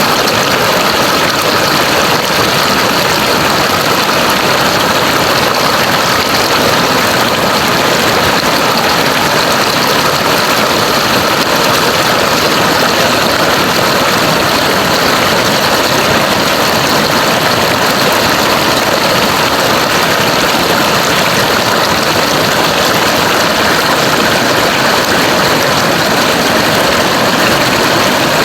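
River water rushing, a loud, steady, unbroken rush.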